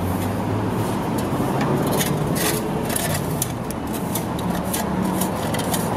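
Shovel and broom scraping dust and debris across a concrete floor in quick, uneven strokes, over a steady low rumble.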